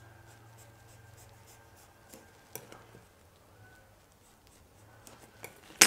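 Skiving knife shaving a thin layer off a small piece of leather, thinning it down to nothing at the edge: faint scraping with a few light clicks. A sharp click comes near the end.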